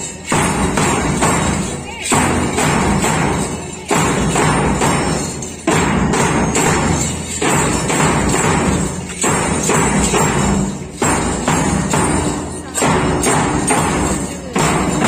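School percussion band playing: a loud drum stroke about every two seconds, each fading before the next, with triangles, small hand cymbals and jingles ringing along.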